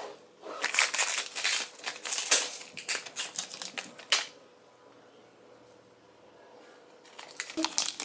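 Plastic food packaging crinkling and rustling as a sealed packet of sliced ham is handled and opened. It goes nearly quiet for about three seconds, then wrappers crinkle again near the end.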